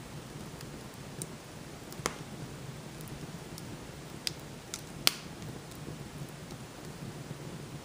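Fire burning in a fireplace: a steady low hiss with a handful of sharp crackles and pops, the loudest about five seconds in.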